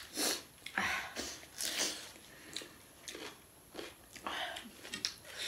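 Sniffling and chewing, in a handful of short, noisy bursts spread over a few seconds. The sniffles come from a nose running with the heat of extremely spicy Korean ramen.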